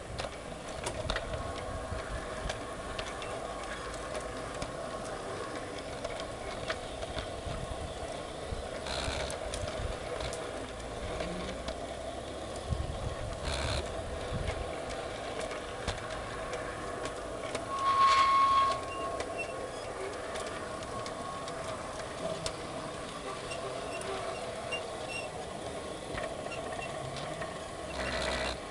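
Model garden-railway train running along its track: a steady drone from the locomotive's motor and gearing, with occasional clicks of the wheels over the rails. About two-thirds of the way through, a brief high tone sounds once, the loudest thing here.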